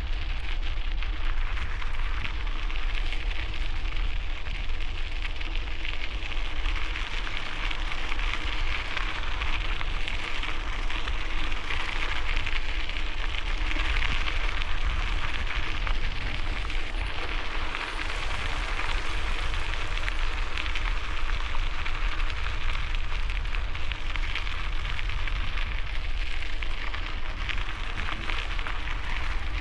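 Bicycle tyres rolling over gravel, a steady crackling hiss, with a low rumble of wind on the microphone underneath.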